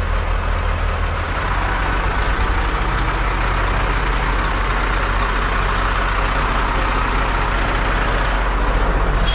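Diesel engine of a Freightliner toterhome truck running at low speed as it rolls up close. The engine makes a steady low, evenly pulsing drone that grows a little louder toward the end.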